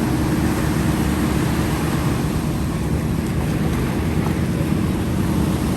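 An engine running steadily at an even pitch, with a held low hum under a wash of noise.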